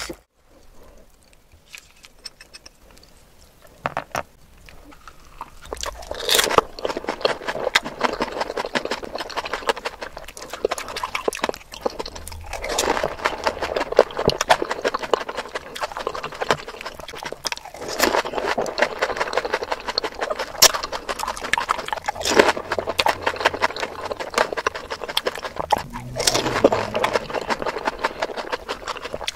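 Close-up eating of pani puri (golgappa): crisp hollow puri shells crunching and wet chewing, heard as dense crackling clicks with swells of noise. It starts a few seconds in, after a quiet opening.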